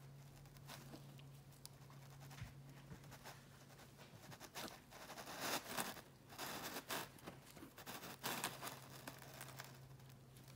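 A scalpel cutting through the tough sclera of a preserved cow's eye, held in gloved fingers. The sound is faint and comes in irregular short bursts from about halfway through. A steady low hum runs underneath.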